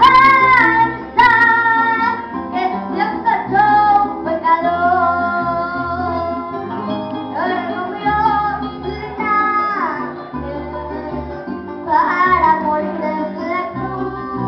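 A young girl singing a Christian praise song into a microphone over an instrumental accompaniment.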